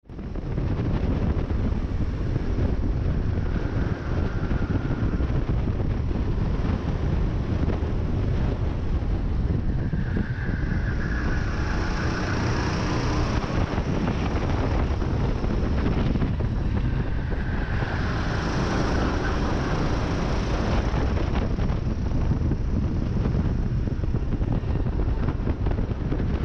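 Racing kart engine running hard, with wind buffeting the onboard camera's microphone; it cuts in suddenly at the start, and the engine note swells and fades several times as the kart accelerates and lifts through the corners.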